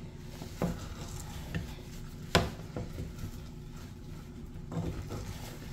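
Wooden spatula stirring and mashing thick fufu dough in a small metal pot, with a few sharp knocks of the spatula against the pot, the loudest about two and a half seconds in.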